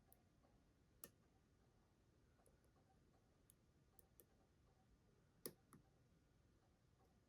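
Faint, irregular metallic clicks of a lock pick working the pins of a Kwikset SmartKey padlock cylinder during single-pin picking: about nine small clicks, the loudest about a second in and about five and a half seconds in, against near silence.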